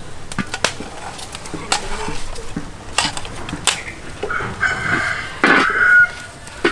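A metal spatula and spoon clink and scrape against a large wok several times. From about four seconds in, a rooster crows loudly for over a second.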